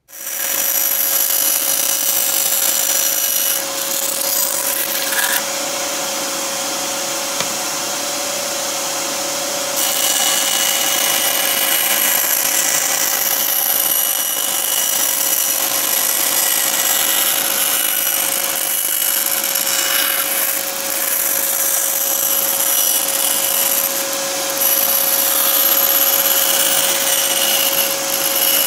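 Bandsaw running and cutting through a thin plywood sheet along a curve, with a steady motor whine under the noise of the blade in the wood.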